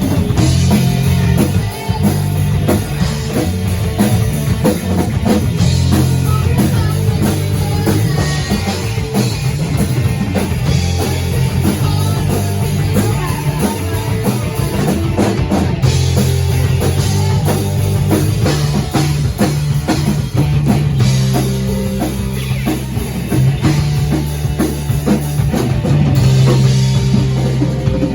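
Rock music: a band playing with a driving drum kit, a bass line and electric guitar.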